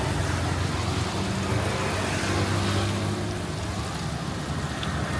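An engine running steadily close by, a low hum over outdoor background noise.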